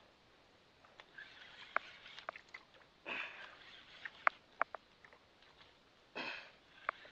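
A person's heavy breaths close to the microphone during a fight with a fish on a jigging rod: two loud nasal breaths about three seconds apart, each about half a second long, with scattered sharp clicks and ticks in between.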